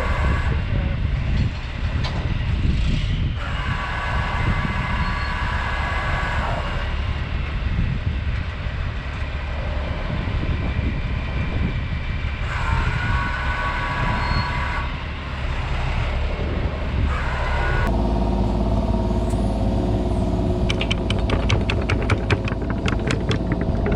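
Diesel engine of a compact excavator or track loader running under working load, with a higher hydraulic whine that swells twice. About 18 s in the sound changes abruptly to a different steady engine drone, with a rapid run of clicks or clatter near the end.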